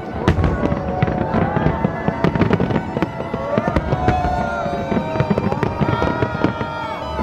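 Fireworks display: a dense, continuous barrage of bangs and crackling bursts, heard under classical violin music.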